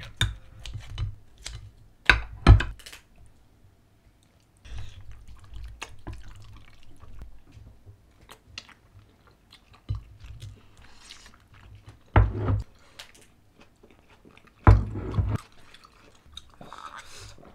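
Table eating sounds: soft chewing of spicy glass noodles and tortilla pizza, broken by a few sharp knocks of bowls and utensils on the table.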